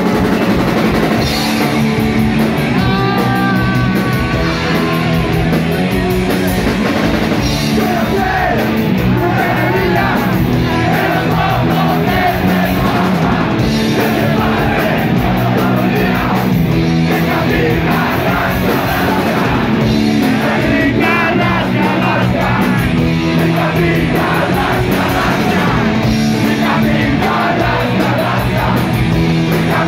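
Punk rock band playing loud and live: electric guitar, bass guitar and drums driving a fast, steady beat, with shouted singing over the top.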